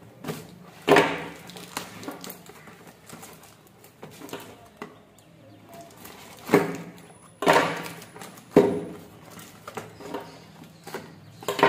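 A handful of sharp knocks and rattles from small cardboard boxes of LED fog lamps and a folding knife being handled on a tabletop.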